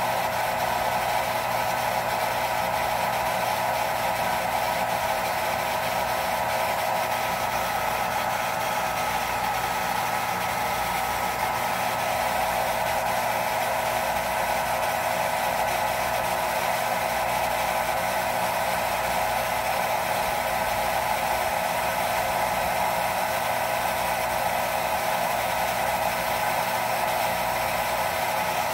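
Jet pump motor running steadily as it pumps the pressure tank up, an even hum with no clicking or chatter.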